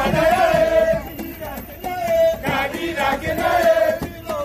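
A crowd of men chanting together in unison, singing a few long held phrases.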